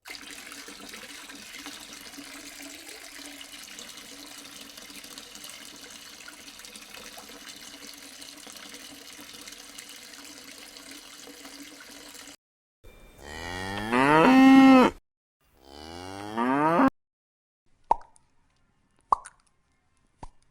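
Cow mooing twice, two long calls that rise and fall, after about twelve seconds of faint steady hiss. Three short plops follow near the end.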